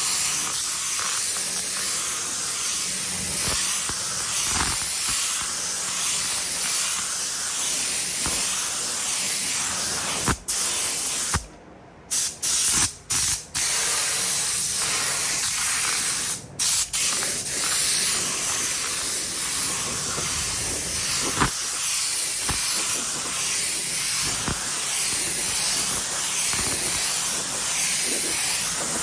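Compressed-air paint spray gun spraying in a steady hiss. The trigger is let off and pulled again several times near the middle, with one pause of nearly a second.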